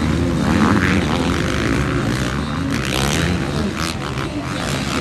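Pack of supercross dirt bikes racing, several engines revving up and down at once with overlapping notes.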